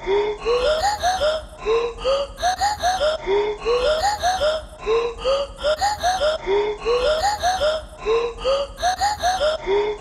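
Looped intro jingle built from short, rising, voice-like chirps, the same pattern of five or six chirps repeating about every 1.7 seconds.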